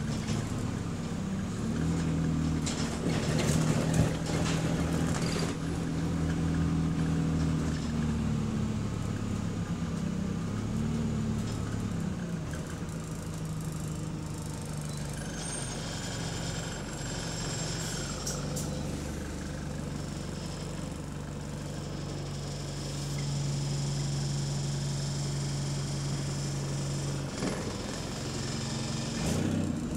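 Bus engine with a burst exhaust, heard from inside the passenger deck as the bus drives: a steady engine drone whose pitch drops about halfway through, then holds lower.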